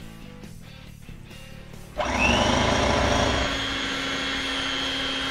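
Soft background guitar music, then about two seconds in an electric hand mixer switches on with a rising whine and runs steadily, its beaters churning melted chocolate into egg-and-sugar batter.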